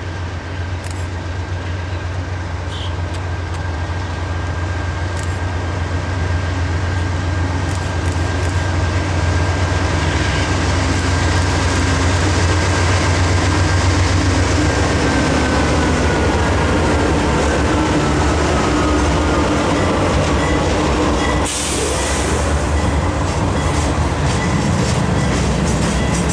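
Freight train passing close by. The diesel locomotives' rumble grows as they approach and go by, with a high whine that drops in pitch as they pass about two-thirds of the way through. Then the freight cars roll past.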